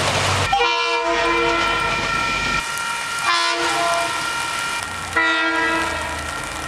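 Leslie S-2M two-chime air horn on a diesel locomotive sounding three blasts of about two seconds each, after a brief rush of train noise at the start.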